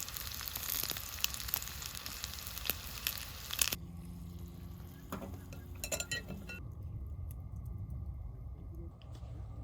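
Food sizzling and frying in a pan, a dense crackling hiss with many small pops, which cuts off abruptly a little over a third of the way in. After it come a few light clinks and then a low steady rumble.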